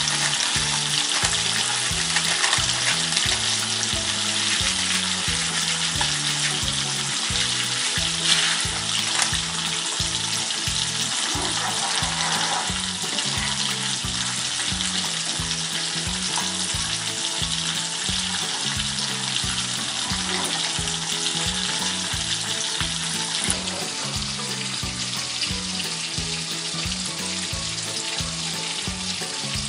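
Steady sizzle of catfish pieces frying in hot oil in a wok, with a spatula stirring the spiced sauce in the pan beside it.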